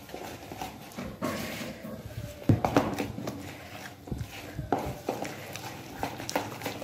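A fork beating flour into a thick beaten-egg batter in a plastic bowl: irregular quick clacks and scrapes of the fork against the bowl, with soft squelches of the batter.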